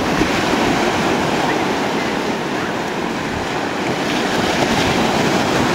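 Ocean surf: waves breaking and foaming water washing through the shallows in a steady, continuous rush.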